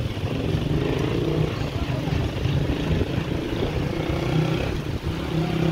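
Bicycle riding on a paved path: steady rough rumble of wind buffeting the handlebar-mounted microphone and the tyres rolling over paving, with faint voices of passers-by.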